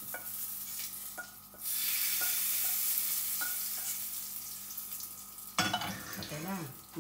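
Hot oil tempering (mustard seeds, urad dal, curry leaves, dried red chillies) sizzling in a steel pan and over the chutney as it is poured on. The sizzle grows louder about a second and a half in. A few light metal clinks come from the steel pan and spoon.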